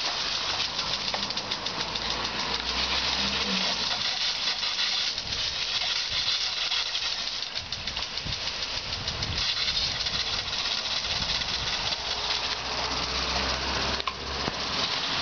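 Garden sprinkler jet spraying water with a steady hiss, broken by irregular splashes and patter as a German Shepherd dog plays in the spray. A low rumble sits under it in the first few seconds and again near the end.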